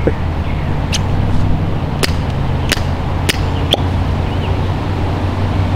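Fire piston being struck and its plunger pulled back out, giving a series of about six sharp clicks and pops between one and four seconds in, over a steady low background hum. These are repeated tries to light the char cloth by compressing the air in the tube.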